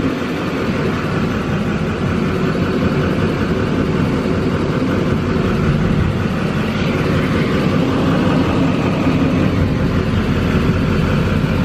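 GMC Sierra 3500HD's 6.6-litre Duramax V8 turbo-diesel idling steadily.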